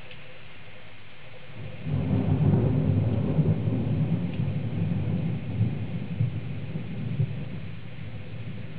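Thunder: a low rolling rumble that breaks in about two seconds in, is loudest for the next couple of seconds, and then dies away slowly.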